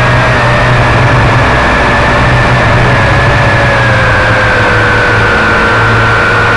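Quadcopter's electric motors and propellers whining steadily in flight, picked up loud by its own onboard camera, over a low rumble. The whine sags slightly in pitch through the second half.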